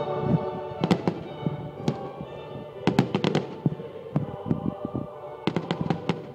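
Fireworks going off: sharp bangs and crackles at irregular intervals, several close together around three seconds in and again near the end, over music playing with the display.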